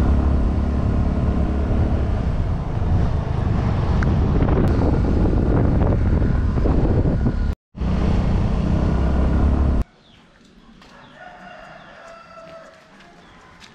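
Loud, steady ride noise from a moving road vehicle, low engine rumble mixed with wind, broken by a brief dropout partway through. About ten seconds in it gives way abruptly to a much quieter outdoor background in which a bird calls a few times.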